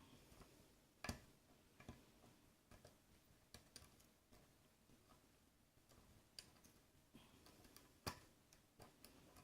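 Faint, scattered clicks and taps of a lock pick working the pins of a pin-tumbler lock held under tension, with two sharper clicks, one about a second in and one near the end.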